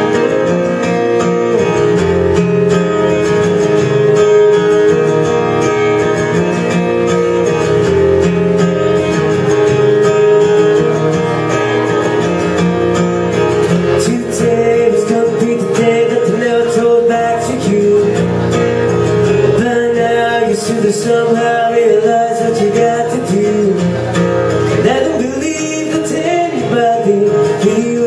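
Live solo performance on a strummed steel-string acoustic guitar, with a man singing over it from about halfway through.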